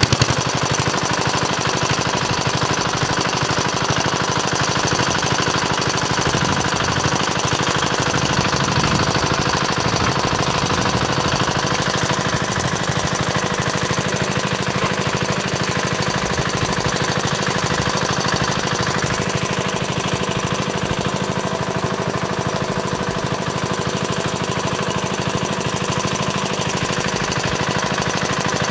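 Small engine running steadily at one speed with a rapid, even knocking beat.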